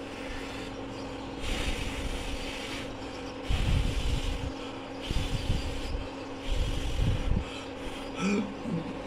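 A few rubbing, scraping noises in bursts, about four of them, over a steady electrical hum.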